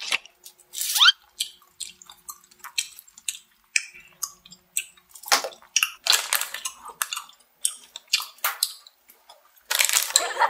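Close-miked chewing of a kielbasa sausage snack: irregular wet mouth clicks and smacks, with a denser run of crackles in the middle as the plastic snack pouch is handled. Near the end a continuous, denser crackling noise starts.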